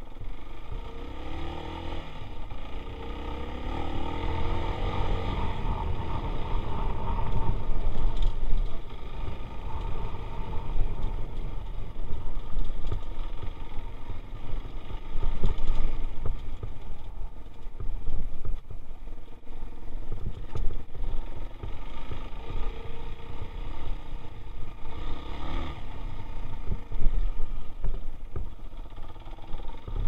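Dirt bike engine running while the bike is ridden, its pitch rising and falling with the throttle over a heavy low rumble.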